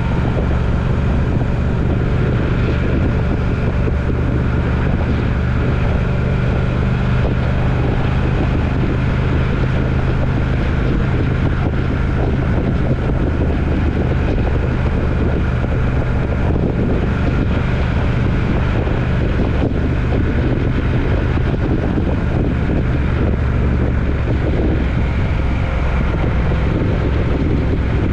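A vehicle on the move: a steady engine drone with road and wind noise, unchanging throughout.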